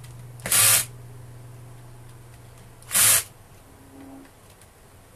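Cordless drill-driver tightening the screws on a sander's backing pad: a steady low motor hum for about the first three seconds, and three short harsh bursts about two and a half seconds apart as the screws are driven home.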